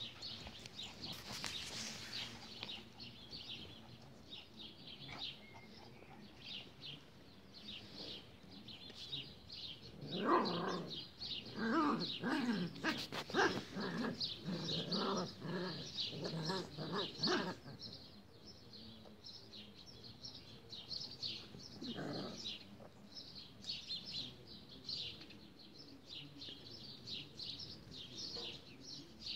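Dogs playing, with a loud run of growls and yips lasting several seconds about a third of the way in and another short one later. Birds chirp steadily in the background.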